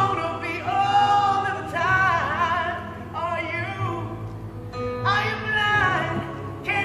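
Live pop-rock singing: a male lead voice holding long, wavering notes with vibrato and sliding between pitches, with other voices and the band underneath.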